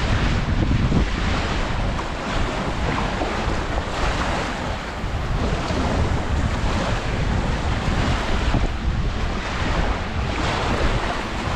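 Wind buffeting the microphone with a heavy, gusting rumble, over Baltic Sea waves washing onto the shore.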